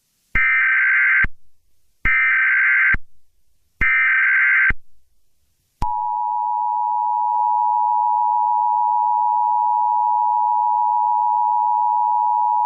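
Emergency Alert System broadcast tones: three short bursts of SAME header data, each a harsh warbling screech lasting about a second, then, about halfway in, the steady two-tone EAS attention signal starts.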